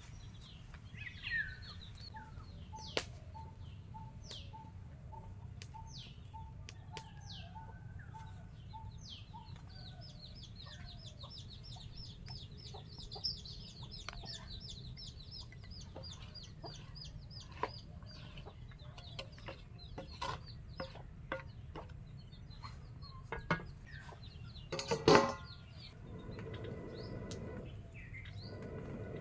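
Chickens clucking, with small birds chirping and a fast high trill in the middle. A brief loud sound stands out near the end.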